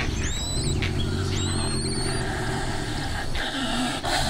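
Leopard growling low, in two long spells, with high rising bird whistles over the first growl.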